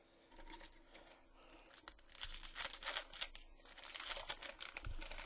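A trading card pack's plastic foil wrapper being torn open and crinkled by hand. The crackling starts about half a second in and grows louder and busier from about two seconds on.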